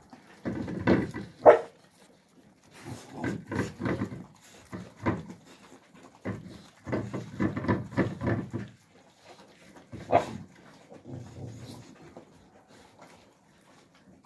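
Central Asian Shepherd (Alabai) puppies eating from metal bowls: irregular bouts of noisy chewing and lapping with short quiet gaps, and a sharper, louder sound about a second and a half in and again about ten seconds in.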